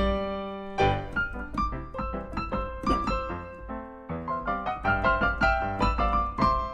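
Piano music: a run of struck notes and chords, with a brief lull about four seconds in before the playing picks up again.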